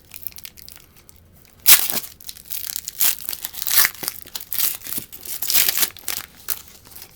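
A trading card pack wrapper being torn open and crinkled: a sharp rip about two seconds in, then several seconds of crackling and rustling as the wrapper is pulled apart and crumpled.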